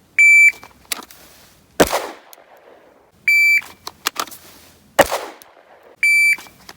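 Electronic shot timer beeping, each beep followed about a second and a half later by a single pistol shot. This happens twice, and a third beep sounds near the end.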